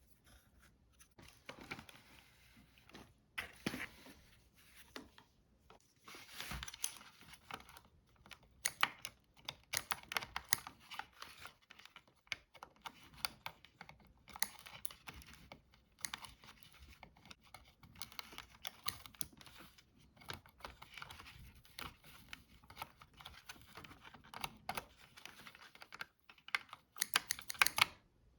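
Irregular clicking, tapping and rustling of small plastic parts being handled, with a quick run of sharper clicks near the end.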